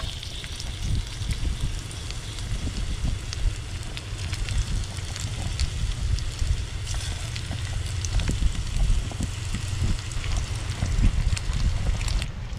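Bacon slices sizzling in hot oil in a small stainless pan on a portable butane stove, with steady crackling and popping of the fat. A low rumble runs underneath.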